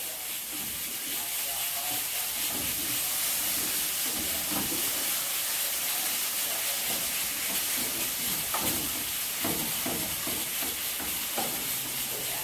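Shredded collard greens sizzling in hot oil and garlic in a frying pan, a steady hiss, with a spoon stirring and knocking lightly against the pan now and then.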